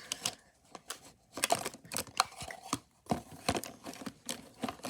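Small objects being handled and rummaged through: a run of irregular clicks and taps with some rustling.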